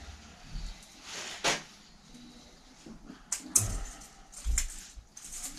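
Scattered small clicks, knocks and a brief scrape as a Woom 2 children's bike wheel hub is handled and taken apart by hand during a freewheel repair.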